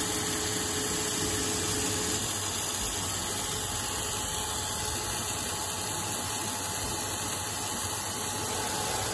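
Proto-Trak CNC lathe single-point threading an ACME thread in 4140 steel: steady spindle and cutting noise under an even hiss of spray-mist coolant.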